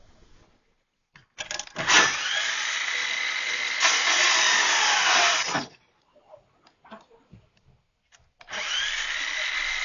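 A power drill runs in two bursts, the first about four seconds long and the second starting near the end. Its whine sags in pitch under load.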